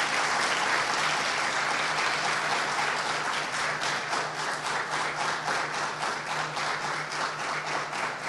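Audience applauding. The clapping is dense at first and thins into more distinct, separate claps after a few seconds.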